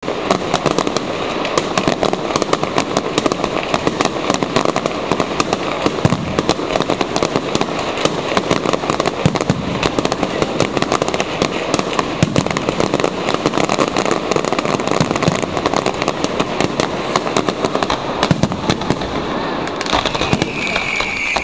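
Fireworks grand finale: a dense, continuous barrage of bangs and crackling shells, thinning out near the end.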